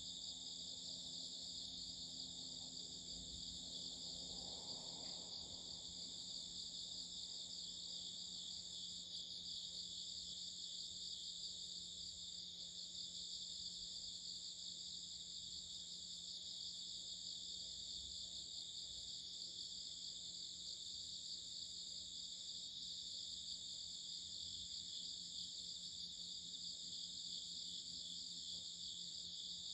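A steady chorus of insects chirping and trilling without a break at several pitches, over a faint low steady hum.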